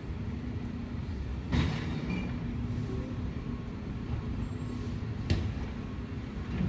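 Mack LEU Heil Multitask side-loader garbage truck running steadily. Two short sharp clanks stand out, one about a second and a half in and another about four seconds later.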